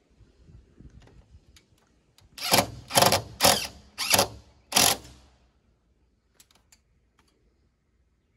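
DeWalt cordless impact driver run in five short bursts, driving a screw through the aluminium sheet of a roof raise. The bursts start about two seconds in and stop about five seconds in.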